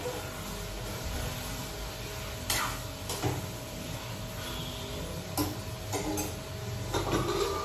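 Metal ladle scraping and clinking in a wok of meat on a gas stove: a handful of short strokes a second or more apart, over a faint steady hum.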